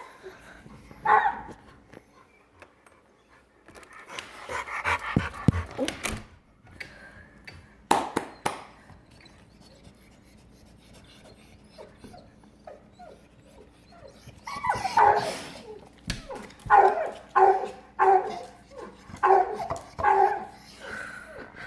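Male dog whining and yelping, worked up over a female in heat. A short cry comes about a second in, then scuffling and a couple of sharp knocks, and near the end a run of yelps and barks about one every second.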